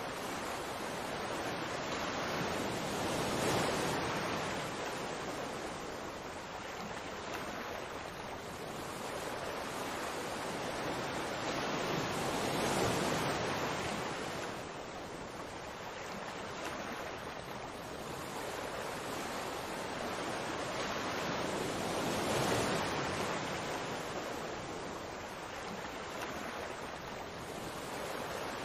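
Rushing, surf-like water noise that swells and eases about every nine to ten seconds.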